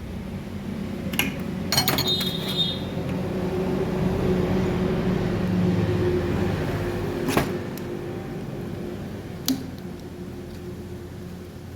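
A steady machine hum that swells and eases off, with a few sharp metallic clinks of steering rack parts being handled, one about two seconds in ringing on briefly.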